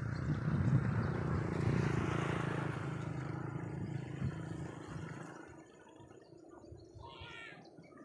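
A motor vehicle's engine passing by, swelling to a peak about two seconds in and fading away over the next few seconds. A brief high chirp near the end.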